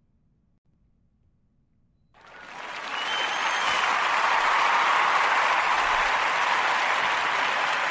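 Near silence for about two seconds, then applause that swells in over a second and holds steady.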